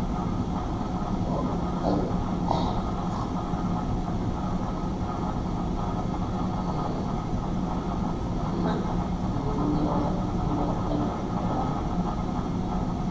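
A steady low rumbling drone with a few faint higher sounds scattered through it, from the show's played sound score.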